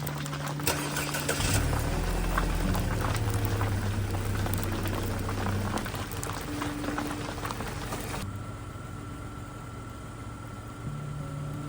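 Heavy rain hissing, with a car engine running steadily underneath; the rain's hiss drops off sharply about eight seconds in.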